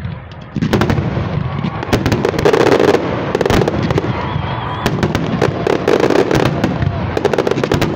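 Fireworks going off in a dense, continuous run of sharp crackles and pops, which jumps louder about half a second in.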